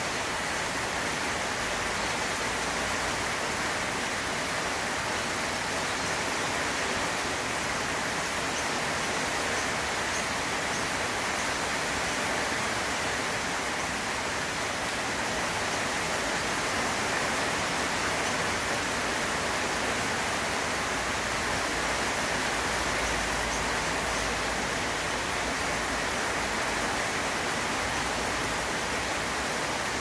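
Heavy rain falling steadily on leafy foliage, an even hiss.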